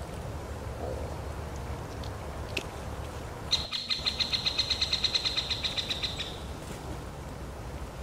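Eurasian nuthatch giving a rapid trill of evenly repeated high notes, about eight a second, lasting nearly three seconds and starting about halfway through, with a few faint bird calls before it.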